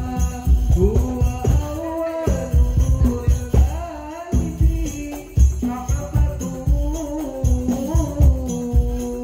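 Hadrah ensemble playing: a solo male voice sings a long, ornamented melodic line through a microphone over a steady rhythm of rebana frame drums.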